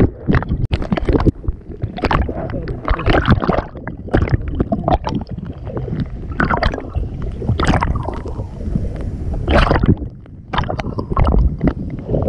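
Seawater sloshing and slapping against a surfboard in uneven surges, over a steady low rumble.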